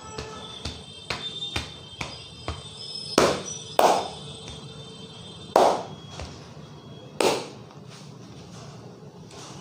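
A barber's hands striking during a head massage: light quick taps, then four loud, sharp slaps at uneven intervals.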